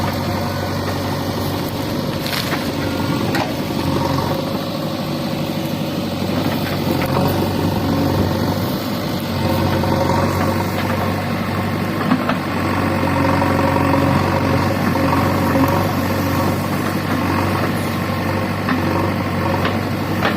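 Diesel engine of a JCB 3DX backhoe loader running steadily at a low, even speed, with a deep hum.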